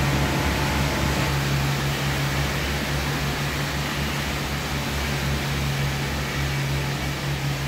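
Steady drone of machinery and ventilation fans on a ship's livestock deck: a constant low hum under an even rush of air.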